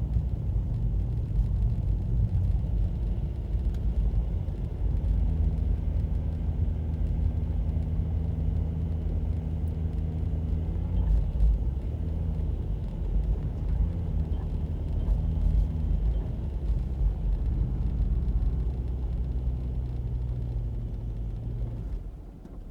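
Car engine and tyre rumble heard from inside the cabin while driving on a snow-covered road. The engine note rises and falls a few times, then eases off near the end.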